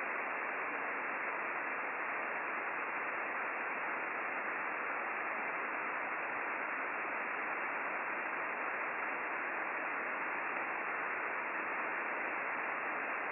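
Steady radio static from an Icom IC-9700 transceiver's receiver on upper sideband, tuned to the RS-44 satellite downlink: an even hiss cut off above about 3 kHz by the sideband filter. No station is coming through on the frequency.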